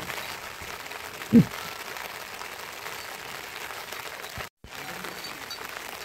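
Steady hiss of rain falling, with one short, loud, low thump about a second and a half in.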